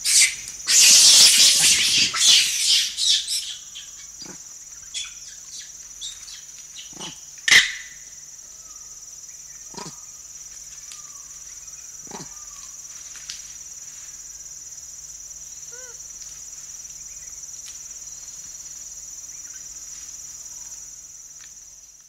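A group of rhesus macaques feeding. Loud rustling and shaking of foliage and branches in the first few seconds gives way to scattered snaps and a few short, soft calls, over a steady high-pitched insect drone. Everything fades out near the end.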